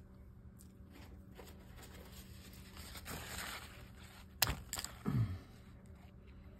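A paper towel rustling as it is handled, then two sharp clicks close together, about two-thirds of the way in, from small metal fishing-reel parts being handled.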